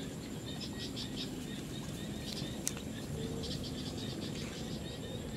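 Rural outdoor ambience with a low steady background and several quick runs of short high chirps from small animals, plus a single sharp click about two and a half seconds in.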